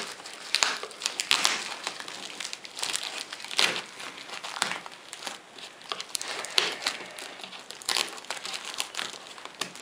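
Clear plastic wrapping on a cardboard monitor box crinkling and rustling in irregular bursts as it is pulled open by hand.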